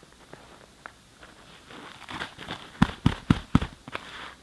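Inflated nylon sleeping pad being handled, rustling, then four quick loud thumps in a row a little under a second long, about three seconds in.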